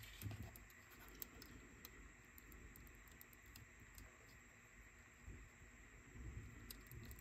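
Near silence with faint, scattered small clicks and taps of the tiny plastic and metal parts of a Sony Walkman cassette player being handled and fitted together.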